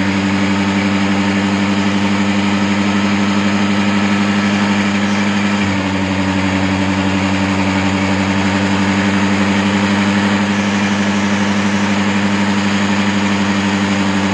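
Honda Dio scooter's small single-cylinder four-stroke engine running steadily at idle while its carburetor air screw is opened a little at a time to find the highest idle speed. The engine note changes slightly about six seconds in.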